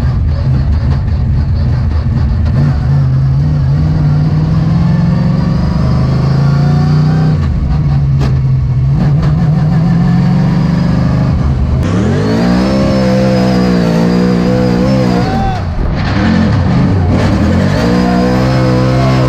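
NASCAR V8 engine running at low revs with a steady deep drone, then revving up about twelve seconds in, dropping back briefly and climbing again near the end.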